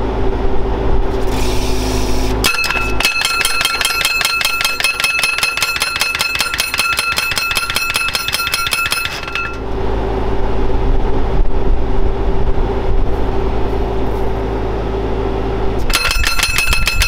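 Skid-steer-mounted hydraulic post driver hammering a post: a run of rapid, evenly spaced metallic blows, about five a second, with a ringing tone, lasting about six seconds from a couple of seconds in, and a second short run near the end. Between the runs the skid steer's engine runs steadily.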